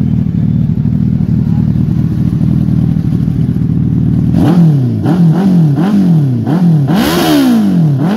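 Suzuki Hayabusa's inline-four engine idling, then revved in a rapid string of throttle blips from about four and a half seconds in, the pitch rising and falling about every half to two-thirds of a second. The biggest blip near the end is the loudest.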